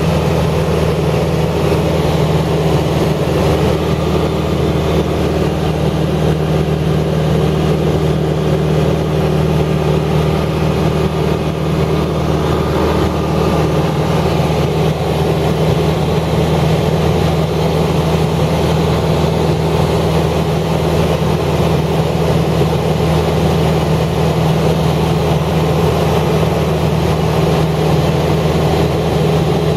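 A steady, unchanging mechanical hum with a low drone, like an engine or motor running at constant speed.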